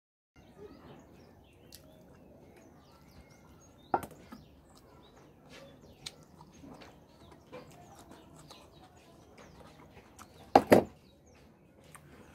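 Close-miked eating sounds: chewing and hands handling food and dishes, with a sharp knock about four seconds in and a louder double knock near the end. Faint birds chirp in the background.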